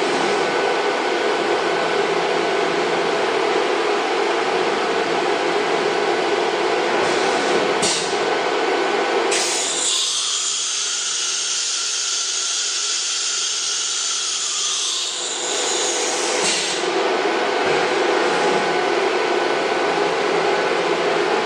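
CNC router's 9.6 kW HSD air-cooled spindle spinning at high speed and cutting wood sheet: a steady high whine over cutting noise. About nine seconds in the cut turns hissier, and it goes back about sixteen seconds in.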